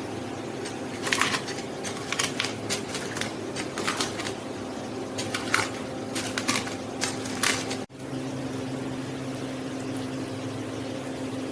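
A cooking utensil scrapes and clinks irregularly against a pan for several seconds, over a steady appliance hum that continues after the scraping stops.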